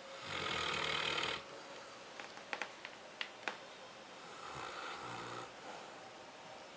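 Newfoundland dog snoring: one loud snore lasting about a second at the start, a few short clicks, then a softer snore about halfway through.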